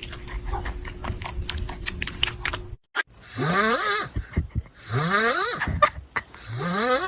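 A pet animal making three rising, rasping calls about a second and a half apart, after light clicking that cuts off suddenly.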